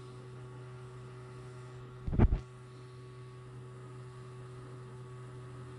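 Steady low electrical hum, with one brief low thump about two seconds in.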